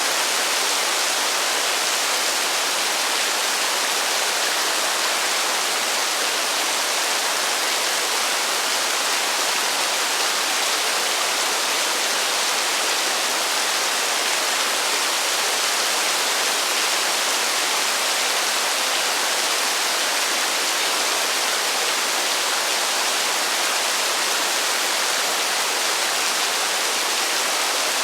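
Heavy rain falling as a steady, even hiss with no thunder and no single drops standing out.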